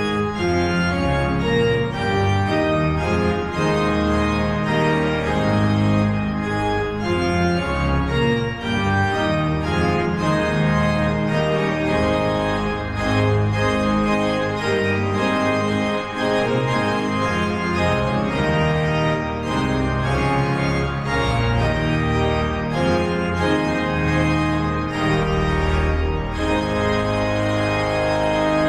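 Organ music: full, held chords moving from one to the next at a steady level.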